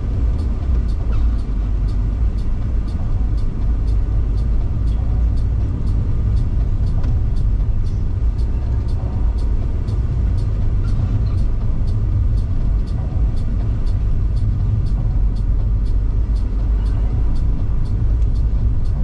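A car driving at a steady pace, its engine and tyres making a steady low rumble, with a faint, regular ticking about twice a second running through it.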